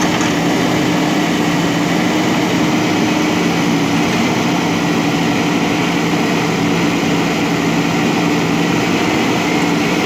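JCB 3DX backhoe loader's diesel engine running at a steady pitch while the rear backhoe arm digs soil.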